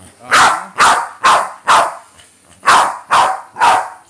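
Boston terrier barking: seven sharp barks, four in quick succession about half a second apart, then after a short pause three more. It is insistent demand barking, which the owner takes as the dog wanting to go back into the pool.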